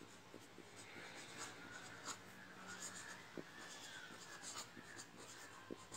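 Pen writing on paper: faint scratching strokes with scattered light ticks as letters are formed.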